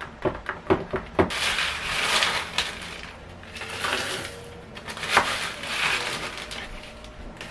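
Ice cubes tipped from a crinkling plastic bag into a metal tumbler, rattling in three noisy spells, after a few short clinks near the start.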